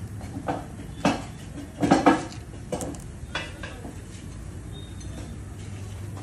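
Metal tools clinking and tapping against the clutch-side engine cover and bolts of a Bajaj Pulsar 200 NS: a handful of short separate clinks, the loudest about two seconds in.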